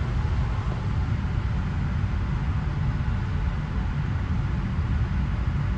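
Steady low rumbling background noise with a fainter hiss over it, even in level and with no shots or knocks.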